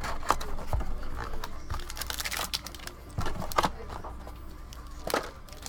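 Handling noise from card packaging: plastic crinkling and rustling, with scattered sharp clicks and taps.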